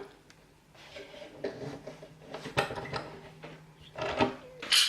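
Small scattered clicks and knocks as a picked-open brass padlock and lock-picking tools are handled, louder near the end.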